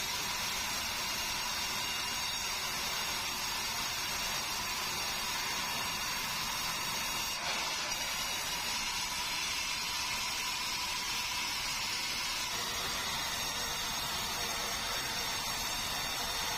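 Sawmill band saw running steadily as it cuts lengthwise through a squared meranti timber fed along a roller table: a continuous hiss of blade in wood over the machine's hum.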